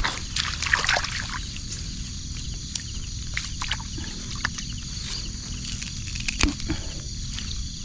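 Grass and weed stems rustling and crackling as a hand drags a bamboo frog-fishing rod and its line out of a grass tangle, with small water sloshes. Insects chirr steadily in the background.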